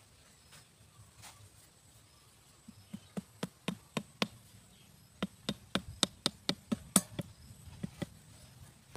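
A run of sharp taps from a knife blade working at the ground beside a wire fan-guard trap, about four a second. They start about three seconds in, pause briefly, and are loudest near the seventh second. Faint high insect-like chirps repeat in the background before the tapping.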